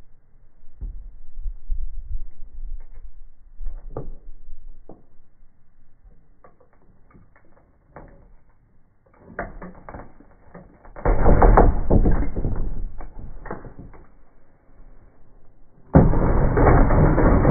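Jigsaw blade cutting through plywood, heard slowed down as a deep, rattling grind. Scattered knocks and quieter stretches come first, then a loud burst of cutting about eleven seconds in that fades away, and near the end the saw comes in suddenly loud and steady.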